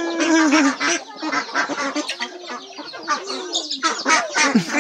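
Domestic chickens clucking, a busy run of short repeated calls.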